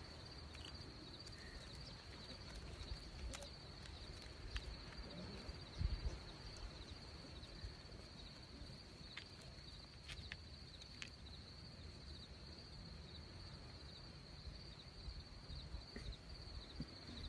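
Crickets chirping in a steady, high, continuous trill, over a low rumble on the microphone, with a few faint clicks and a soft thump about six seconds in.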